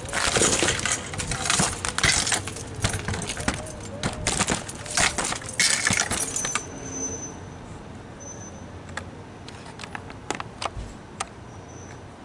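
Handling noise from a camera tripod being picked up and repositioned: metallic rattling and clinking for about the first six seconds, then only a few scattered clicks.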